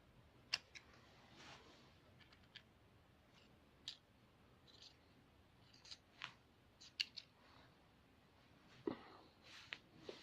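Faint, scattered small clicks and scrapes of a small tool working inside an opened iPhone 6s, as the battery connector is pried loose.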